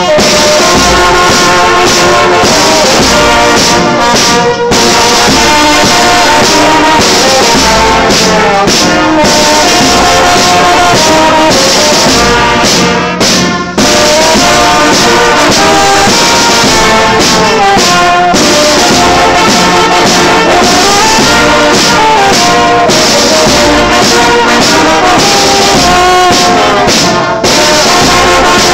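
Large brass band playing loudly together: trumpets and trombones carrying the tune over a bass drum and snare drums.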